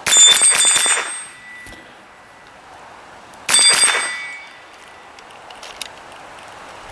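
Two short bursts of .22LR fire from a GSG STG44 rifle, each about a second long, with steel targets ringing on the hits; the second burst comes about three and a half seconds in.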